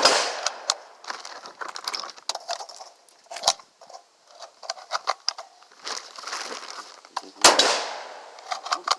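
Two 12-gauge shotgun shots, one right at the start and one about seven and a half seconds in, each trailing off in a long echo. Smaller clicks and knocks come between the shots.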